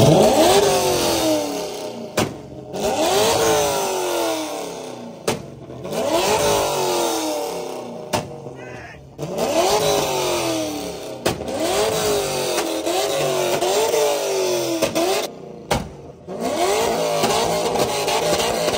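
A loud V8 car exhaust being free-revved hard in repeated blips. Each rev climbs sharply and falls back, roughly every three seconds, with a quick run of blips a little after the middle and a longer, held rev near the end.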